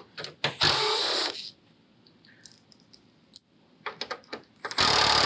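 Cordless right-angle impact driver with a 5/16 nut driver run in two short bursts of about a second each, backing out small 8 mm bolts; a few light metallic clicks come just before each burst, and the second burst starts near the end.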